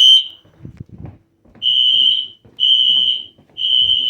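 Wheelock NS fire alarm horn sounding the temporal-3 evacuation pattern in a single high-pitched tone. The last beep of one group ends at the start. After a pause of about a second and a half come three beeps of about half a second each, evenly spaced. A few faint low knocks fall in the pause.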